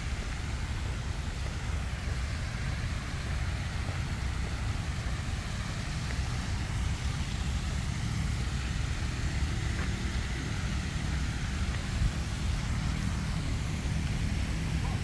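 Steady low rumble of distant road traffic, with a faint hiss of outdoor ambience above it.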